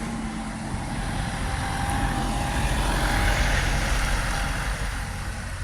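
Big truck's engine passing close by, growing louder to a peak about three seconds in and then fading.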